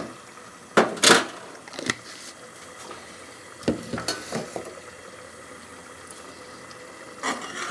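Tomato masala simmering in an aluminium pot on a gas burner, a steady faint bubbling and hiss, broken by sharp clinks of a steel spoon against the pot and the stovetop, the two loudest about a second in and a few lighter ones over the next few seconds.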